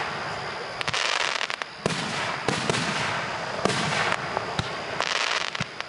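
Aerial fireworks going off: a series of sharp bangs at irregular intervals, several followed by a dense hissing crackle lasting about half a second to a second.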